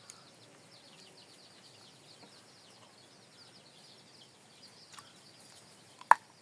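Many small birds chirping in rapid, high, falling notes over a faint outdoor background, with a sharp knock about five seconds in and a much louder click or knock just after six seconds.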